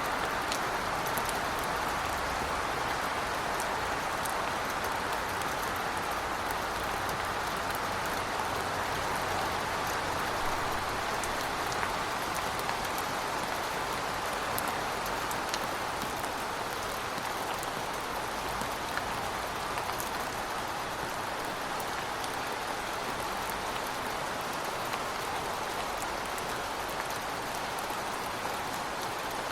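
Steady heavy rain falling, a dense even hiss with scattered individual drop ticks.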